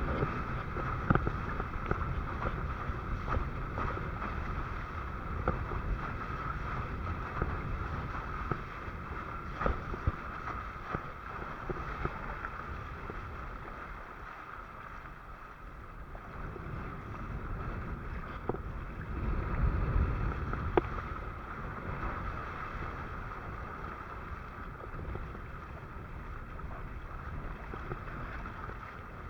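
Wind buffeting the microphone and water rushing and splashing against a windsurf board under way, with scattered sharp slaps of water. It dips quieter around the middle and swells again a little past two-thirds of the way through.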